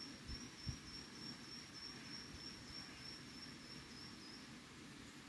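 Faint, steady, high-pitched insect trill, cricket-like, that stops about four and a half seconds in. Under it there is a low rumble, and two soft low bumps come near the start.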